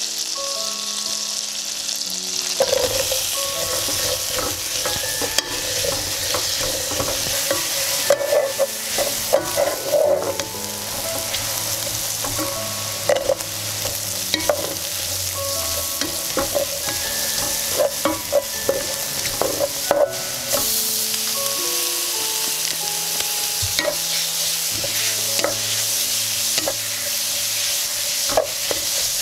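Butter sizzling in a hot nonstick pot, then vegetables and sliced beef stir-frying in it with a steady hiss, a wooden spatula scraping and knocking against the pan from a couple of seconds in.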